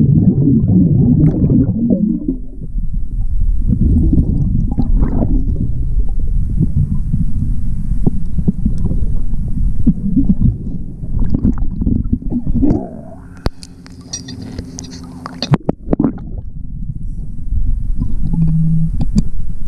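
Scuba diver's exhaled bubbles, heard underwater from a chest-mounted camera, rumbling and gurgling in repeated surges and loudest at the start. Around two-thirds through it drops to a quieter stretch with faint steady tones and a few sharp clicks.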